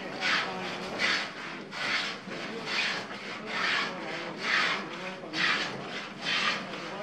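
Hand plane shaving the timber stringers of a wooden boat frame, in repeated scraping strokes about one a second, fairing them to take the plywood hull panels.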